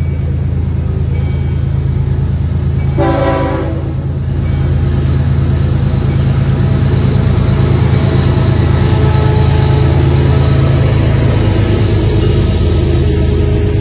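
Florida East Coast Railway freight train approaching and passing, its GE ES44C4 diesel locomotives working under power as the train pulls out of a speed restriction. The horn gives one short blast about three seconds in. The engine drone and the rumble of wheels on the rail grow louder from about five seconds in as the locomotives come level and go by.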